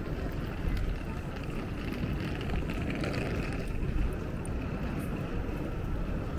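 Steady low rumble of city street ambience, with faint scattered ticks.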